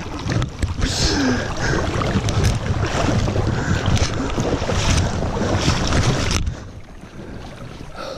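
Shallow stream water rushing and splashing around a landing net held in the current, with wind buffeting the microphone. The noise is loud and dense, then drops suddenly to a quieter flow about six seconds in.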